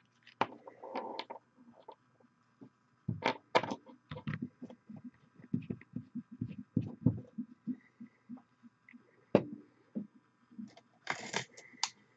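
Irregular soft knocks and clicks from small objects being handled close to the microphone, with a brief rustling hiss about eleven seconds in.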